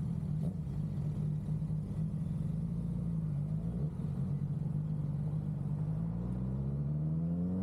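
Suzuki GSX-R750's inline-four engine running steadily at low revs, rising in pitch over the last second or two as the bike accelerates away.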